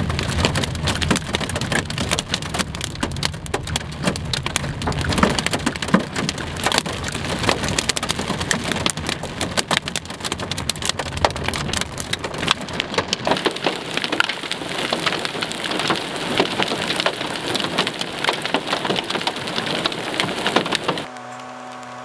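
Nickel-size hail and heavy rain pelting a car's roof and windshield, heard from inside the car as a dense, loud rattle of hits. It cuts off abruptly near the end.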